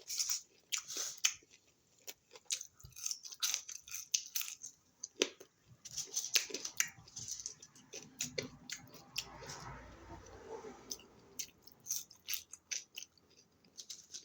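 A person chewing food close to the microphone, with many short, irregular wet mouth clicks and crunches.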